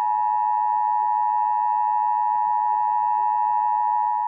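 Emergency Alert System two-tone attention signal (853 Hz and 960 Hz sounded together) broadcast over AM radio: a loud, steady, unbroken tone. It marks the start of an EAS required monthly test, just before the spoken test message.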